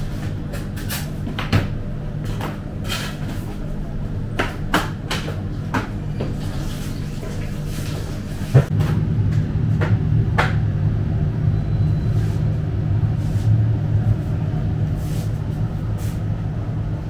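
Tableware and small metal containers clinking and knocking as they are handled and set down on a table, scattered clicks with one sharp knock about halfway through, over a steady low hum that grows louder from that point on.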